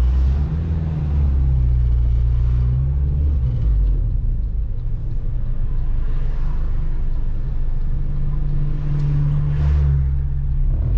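B20 VTEC engine of a Honda Civic running under load as the car is driven off in gear. Its low drone shifts pitch in steps several times.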